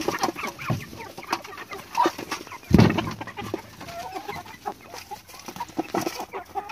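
A flock of chickens clucking and calling while they crowd around feed and peck, with wings flapping at the start, many sharp clicks and taps, and one loud thump nearly three seconds in.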